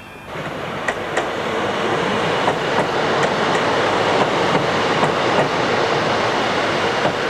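A train running on the rails close by: a loud, steady rumble of wheels with irregular clicks from the rail joints. It starts suddenly just after the start.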